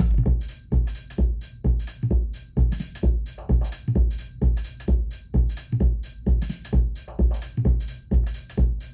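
Korg Drumlogue analog/digital drum machine playing a factory preset pattern in sequence mode: a steady bass drum on every beat, about two and a half a second, with hi-hat ticks and electronic percussion between.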